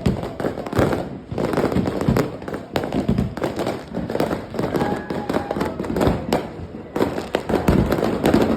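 Consumer fireworks going off in rapid, irregular succession, a dense string of bangs and pops with no pause.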